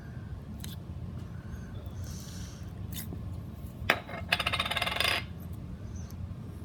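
One sharp click, then about a second of rapid, dense clicking and rattling of small hard objects, which stops suddenly, over a steady low hum.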